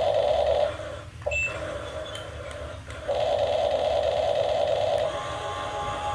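Small electric motor of a radio-controlled model excavator whining steadily, stopping after under a second and running again for about two seconds from around three seconds in.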